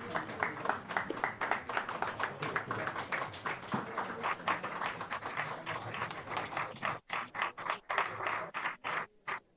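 A small group applauding, with single hand claps distinct. The clapping is dense at first and thins to scattered claps in the last few seconds.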